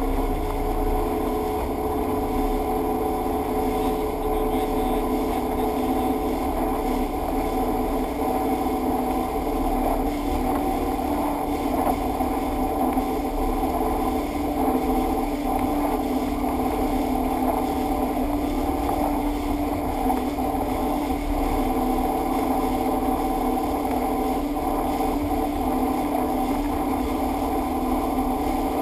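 Motorboat running steadily at speed while towing an inflatable tube, its engine holding an even hum over the rush of water along the hull and its wake.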